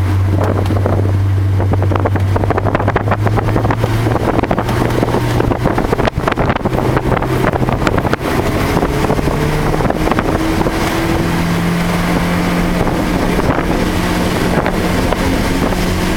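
Car engine pulling hard on track, its note climbing slowly, with a brief drop in level about eight seconds in before it climbs again. It sits over a steady rush of wind and wet-road noise.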